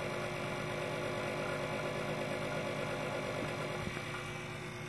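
Grundfos 26-99 circulation pump running with a steady hum, a noise the owner takes for its bearings starting to go bad.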